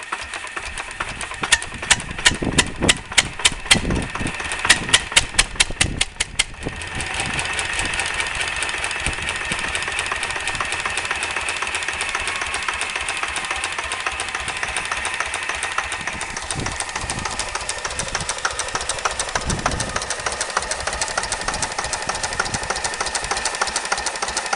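Slavia D8 8 hp stationary engine running: at first a string of loud separate knocks that come faster and faster, then about six and a half seconds in the sound turns suddenly into a dense, steady, rapid running with a whine on top, which lasts to the end.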